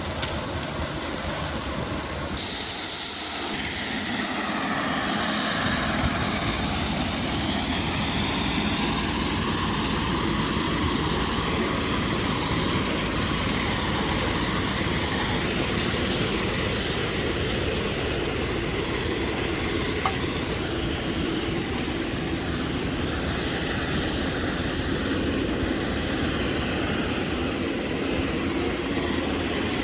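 Heavy machinery running steadily, a dense mechanical engine noise with no let-up. It grows fuller a few seconds in, then holds.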